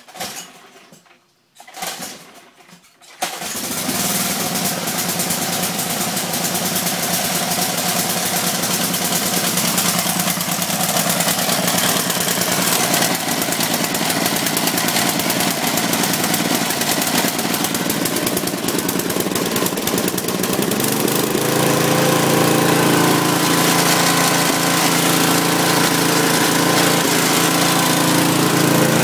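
Snapper riding mower's 8 HP engine being pull-started cold: a couple of short pulls, then it catches about three seconds in and keeps running. About twenty seconds in its note changes and settles into a steadier, slightly louder run.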